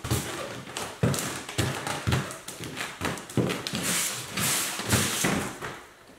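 Footsteps of 3D-printed flexible-filament shoes (white TPU and orange NinjaFlex) stepping, stamping and scuffing on a platform: a string of knocks, roughly two a second, with scraping scuffs between them that are loudest about two-thirds of the way through.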